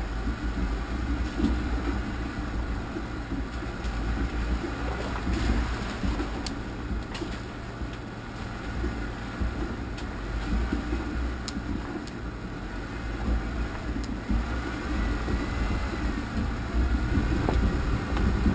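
An off-road vehicle drives slowly over a rough, rocky trail: a steady low engine and drivetrain rumble, with a few sharp clicks and knocks from the bumpy ground.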